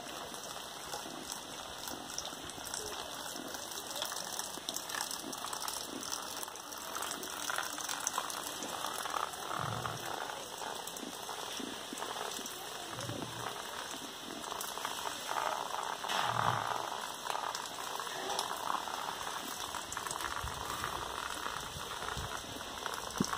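Steady monsoon rain falling on leaves and ground, an even hiss, with a few soft low thumps about ten, thirteen and sixteen seconds in.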